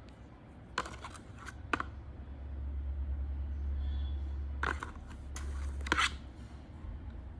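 Handling noise from unboxing an AUX cable and its packaging: two short clusters of clicks and rustles, about a second in and again about five to six seconds in. A low rumble runs underneath from about two seconds in.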